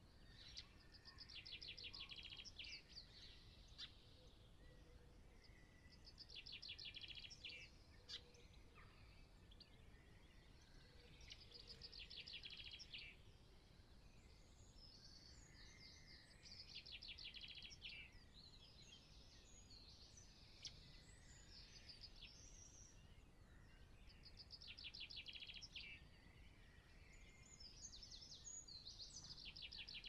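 Faint birdsong: a songbird repeating a short phrase of rapid trilled notes about every five seconds, with scattered chirps from other birds between phrases.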